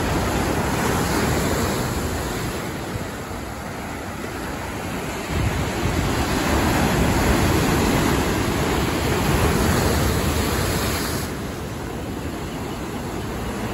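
Big ocean surf breaking and washing in, a steady rushing roar that swells louder for several seconds about five seconds in.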